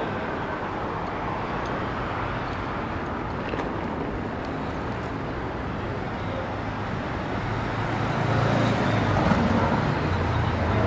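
City street traffic: a steady rumble of passing cars, growing louder about eight seconds in.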